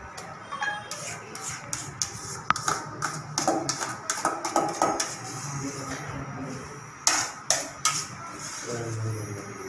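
Background music with sharp tapping hits, with indistinct voices now and then.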